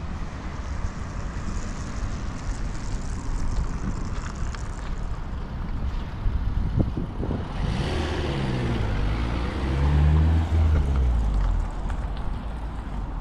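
Road traffic with a steady low rumble of wind on the microphone. About eight seconds in, a heavy vehicle's engine passes close by, its pitch shifting as it goes, loudest around ten seconds, then fading.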